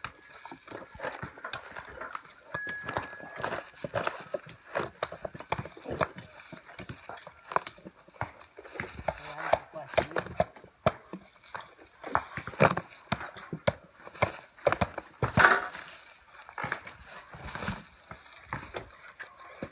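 Cork harvesters' hatchets striking and prying the bark of cork oaks: a run of irregular sharp knocks and cracks, the loudest about fifteen seconds in, as the cork is cut and split away from the trunk.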